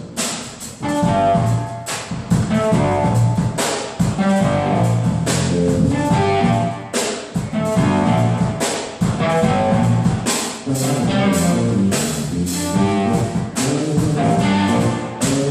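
Live band playing instrumental music: electric guitar lines over electric bass and a drum kit keeping a steady beat with regular cymbal hits.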